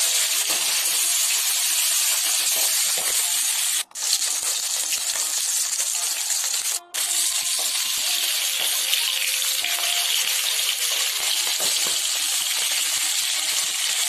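Hilsa fish pieces shallow-frying in hot mustard oil in an aluminium kadai, a steady high sizzling hiss. It cuts out abruptly twice for a moment.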